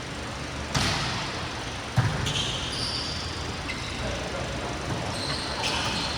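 Volleyball being struck twice, about a second apart, with short high squeaks of sneakers on an indoor court following.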